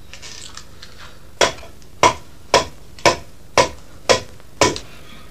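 Hand axe chopping into a wooden drum shell as the body is shaped: seven sharp strikes, about two a second, starting about a second and a half in.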